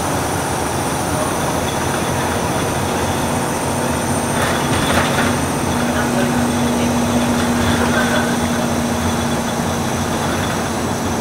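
Volvo B6BLE single-deck bus under way, heard from inside the passenger saloon: steady engine and road noise. There is a brief rattle about four and a half seconds in, and a steady humming tone sets in about halfway and holds for several seconds.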